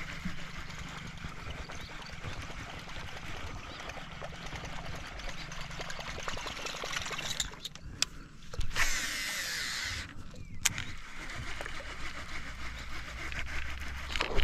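A fishing reel's spool whirring for about a second, in falling pitch, roughly nine seconds in, typical of a cast. Steady outdoor noise with a low hum runs under it, and a few sharp clicks come just before and after.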